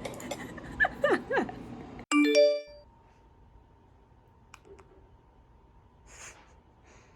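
A short, bright chime sound effect about two seconds in, several bell-like tones sounding together and dying away within half a second. It is followed by faint room tone with a thin steady tone.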